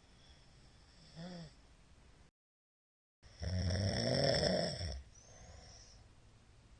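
A middle-aged man snoring in his sleep: a short low moan about a second in, then the sound cuts out completely for about a second, followed by one loud snore lasting about a second and a half. The heavy snoring is put down partly to drink by the uploader.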